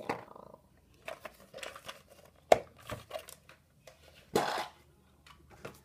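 A hard plastic food-storage container and its snap-on lid being opened and handled. There is one sharp plastic click about two and a half seconds in, a few lighter knocks and taps, and a short crinkling rustle about four seconds in.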